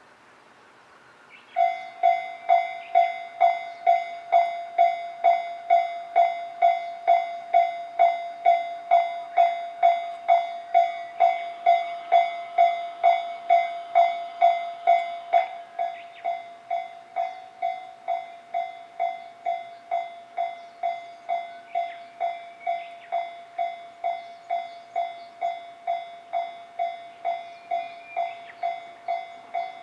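Japanese railway level-crossing warning bell starting up about a second and a half in and ringing steadily, a little over two strikes a second, each strike a clear ringing tone. About halfway through it drops to a quieter level and keeps ringing.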